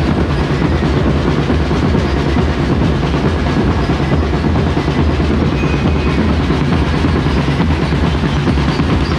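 Festival street drum band playing a fast, steady rhythm on many drums at once, the beats running together into a dense, loud pounding.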